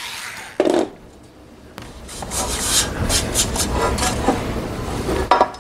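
A hand brushing and rubbing across the enclosure's top panel in quick scraping strokes, sweeping drilling chips off the surface. There is a short knock about half a second in and another near the end.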